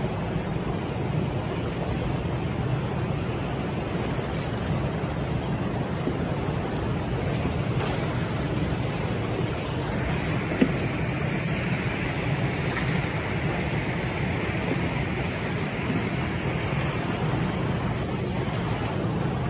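Steady rush of turbulent water pouring through a dam spillway outflow, with one brief knock about ten seconds in.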